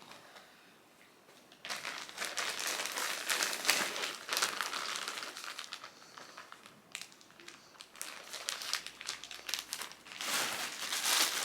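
Packaging crinkling and rustling as it is handled, in a run of irregular crackles that starts about two seconds in and grows louder again near the end.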